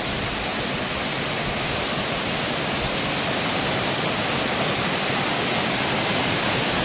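Waterfall's steady rush of falling water, a dense even noise.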